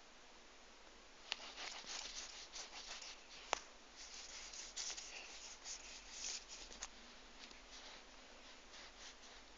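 Sheets of paper rustling and scratching under a cat moving about on them, a run of soft scratchy noises and small clicks from about a second in until about seven seconds, with one sharp click a few seconds in.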